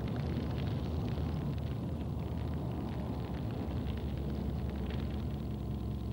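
Brush fire burning through dry grass and brushwood: a steady low rumble of flames with scattered crackles of burning twigs, the crackles thinning out after about four seconds.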